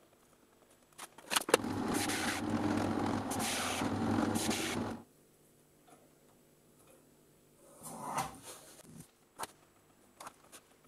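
Pencil scratching along a plastic set square on plywood while marking out: a few light clicks, then a long stretch of drawing from about a second and a half in that stops suddenly, followed by softer scuffs and a single tap near the end.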